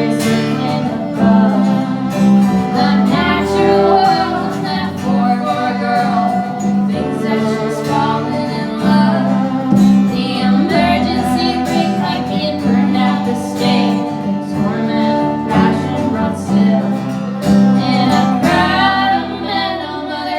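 Live folk music: acoustic guitar strummed steadily under a woman singing.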